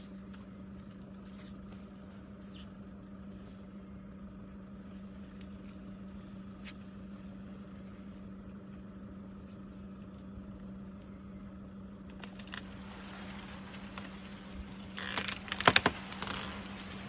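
Vehicle engine idling with a steady low hum. Near the end, rustling builds into a burst of loud cracks as an elephant shakes the tree's branches with its trunk.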